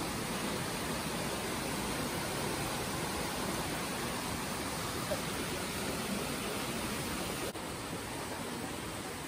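Steady, even rushing noise, dropping slightly quieter at an abrupt break about seven and a half seconds in.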